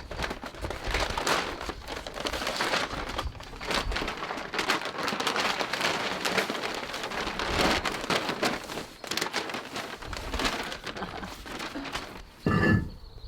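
Large plastic bag crinkling and rustling continuously as it is handled and worked open, a dense crackle of many small clicks. A short, louder sound comes near the end.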